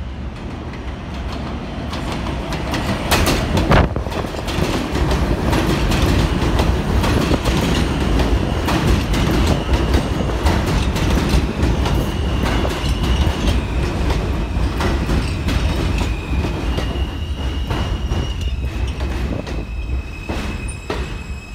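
New York City Subway R160A-1 train pulling into an elevated station. Its rumble grows over the first few seconds, with the wheels clacking over rail joints, and a high wheel squeal sets in about halfway and holds, shifting in pitch, as the train slows.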